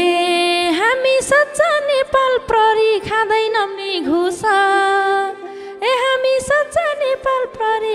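Live Nepali dohori folk music: a woman sings an ornamented folk melody into a microphone over the band's accompaniment.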